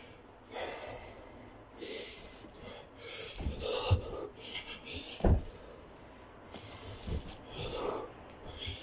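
A man breathing hard with forceful exhalations every second or so while doing burpees. Dull thuds come as his hands and feet land on a carpeted floor, the loudest about four and five seconds in.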